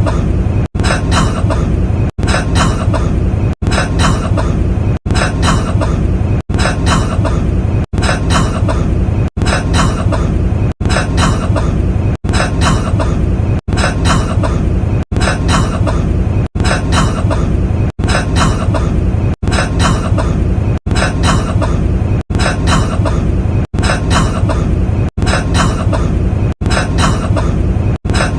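A man's cough, one short recording looped again and again: one cough about every one and a half seconds. Each repeat is cut off by a brief silent gap before the next begins.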